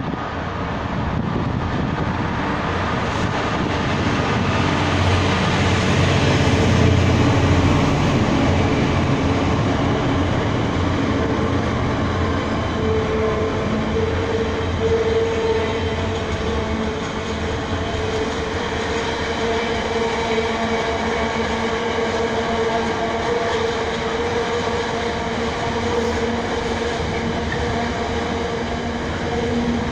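A Class 66 diesel-electric freight locomotive, with its two-stroke V12 engine working, draws close and passes, loudest about six to eight seconds in. Then a long train of loaded container wagons rolls steadily by, with a steady tone running through the rumble of the wheels.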